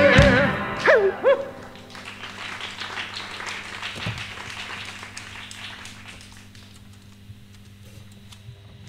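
Audience applauding, with two short whoops about a second in, just after the last sung note of a musical number stops. The clapping thins out and fades away over the next several seconds.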